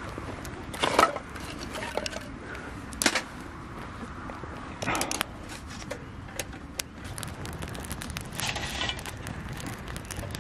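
Wood campfire crackling with many sharp pops, and a few louder knocks of wood about 1, 3, 5 and 8.5 seconds in.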